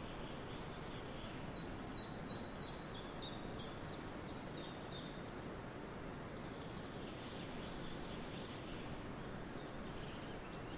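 Songbirds singing over a steady rush of running water. A series of about ten short, high, down-slurred notes comes from about one and a half seconds in, and a rapid buzzy phrase follows about two seconds later.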